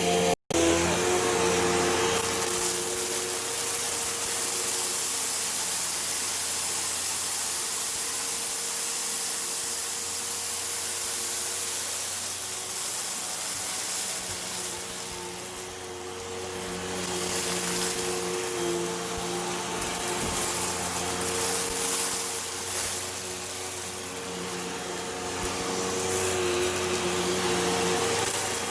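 Hoover Elite Rewind Plus upright vacuum cleaner running: a steady motor hum over a rush of air, growing softer and louder a few times as it is worked. The sound drops out for an instant about half a second in.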